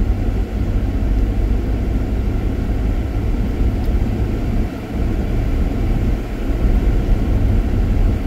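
Car driving on a snowy road, heard from inside the cabin: a steady low rumble of tyres and engine.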